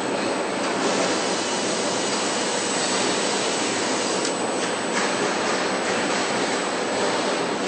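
Steady, even rushing noise of a factory hall, with machinery and air hiss and a thin, high, steady whine over it. A couple of faint clicks come about halfway through.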